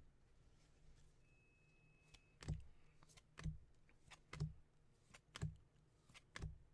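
Faint clicks from baseball trading cards being flipped through one at a time, about one card a second, five in all, starting a couple of seconds in.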